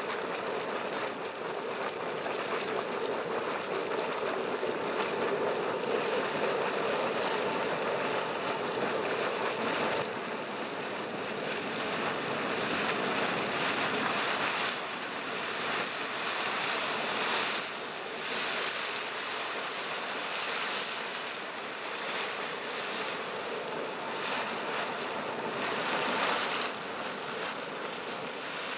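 Boiling hot-spring vent: water churning and splashing vigorously at the surface, a steady rushing, sloshing noise.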